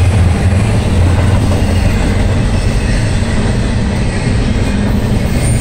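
Double-stack intermodal freight train's loaded well cars rolling past: a steady, loud noise of steel wheels on the rails.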